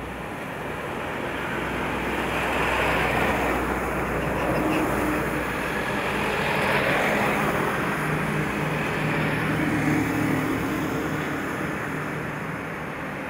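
Road noise heard from inside a moving car on a wet highway: a steady hiss of tyres on the wet road with a low engine hum, growing louder about two seconds in and easing off near the end.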